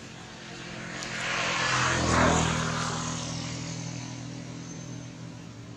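A passing engine, growing louder for about two seconds and then fading away.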